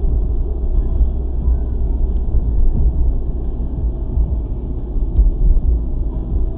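Steady low rumble of a car's engine and tyres on the road, heard from inside the cabin while driving at about 40 km/h.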